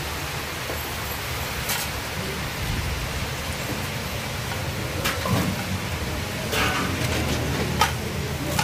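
Chapli kebabs frying in a wide, flat pan of hot fat: a steady sizzling hiss. A few short, sharp clinks of a metal slotted spoon against steel pans and bowls sound over it.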